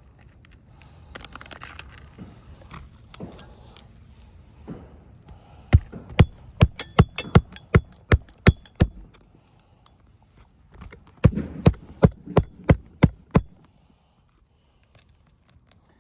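Hammer driving roofing nails into shingles: two runs of quick, sharp strikes with a metallic ring, about three a second, after some scraping and handling of the shingles.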